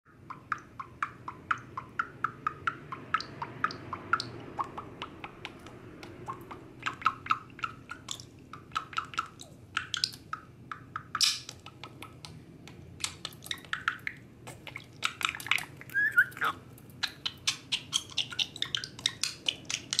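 Male budgerigar chattering and clicking in quick short notes as it pecks at its reflection in a shiny surface, with a few brief chirps. The clicks come thicker in the second half.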